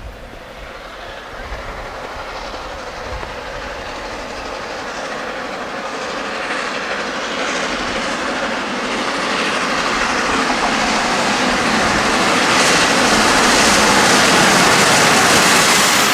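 A train, headed by the A4 Pacific steam locomotive 60009, running past at speed with its wheels clattering on the rails. The rushing sound grows steadily louder and is loudest near the end.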